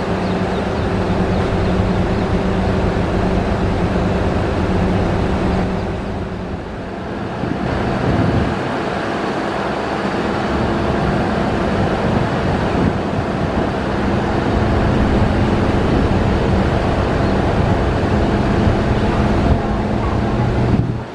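A DEMU (diesel-electric multiple unit) heard from aboard as it rolls slowly: a steady diesel engine hum over the rumble of wheels on the track. The engine note drops briefly about six seconds in, then picks up again.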